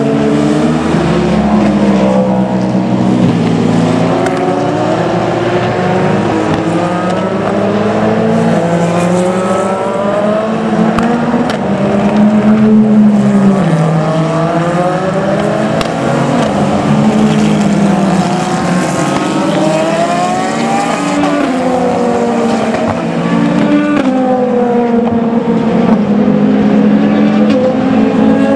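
Endurance prototype race cars (Hypercars and LMP2s) going through a corner one after another. Each engine drops in pitch as the car slows for the bend, then rises as it accelerates away, often with two or three cars heard at once.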